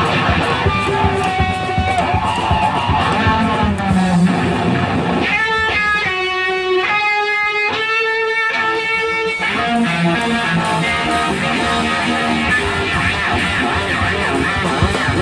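Live rock music led by a Fender Stratocaster electric guitar over bass and drums. About five seconds in, the band drops out for some four seconds, leaving a few long held guitar notes stepping in pitch, then the full band comes back in.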